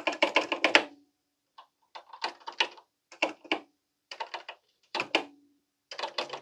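Keys being typed on a Commodore PET keyboard: quick runs of sharp key clicks with short pauses between, a dense run at first and then shorter clusters about once a second, as rows of repeated letters and Return are entered.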